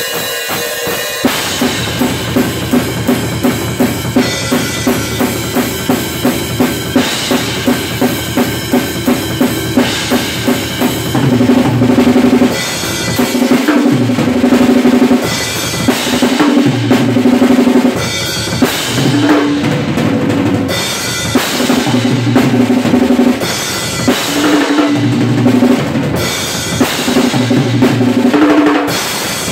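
Acoustic drum kit played with sticks: bass drum, snare and cymbals in a steady beat with regular accents. About eleven seconds in the playing gets louder and busier, with repeated runs around the toms.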